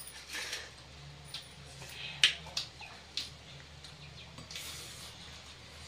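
Close mouth sounds of people eating by hand: chewing and lip smacks, mixed with fingers squishing rice against steel plates. A scatter of short sharp clicks runs through it, the loudest a little over two seconds in.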